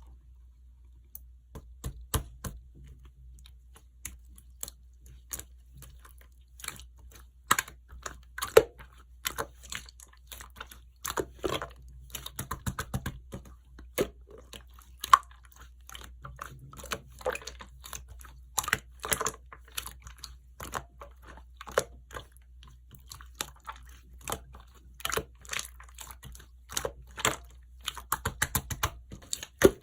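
Clear slime being worked by hand, giving dense, irregular sticky clicks and small air-bubble pops.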